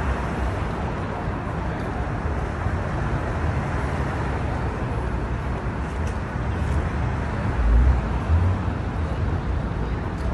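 Steady traffic noise from cars driving along a busy city street, with a brief louder low rumble about eight seconds in.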